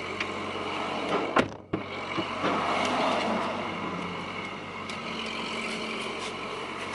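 Steady motor-vehicle noise, with a sharp knock about a second and a half in.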